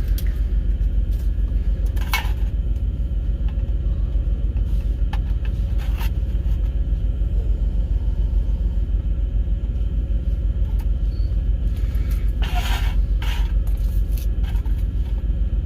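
Steady low rumble of an idling diesel truck engine, with a few short scrapes from small hand work on a metal tin about two seconds in and again near the end.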